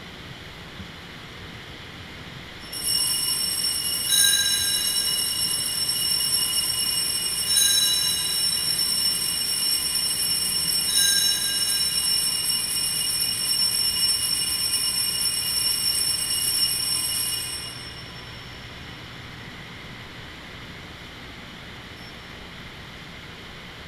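Altar bells rung at the elevation of the consecrated chalice: bright, sustained ringing starting about three seconds in, with three stronger rings a few seconds apart, then dying away about eighteen seconds in.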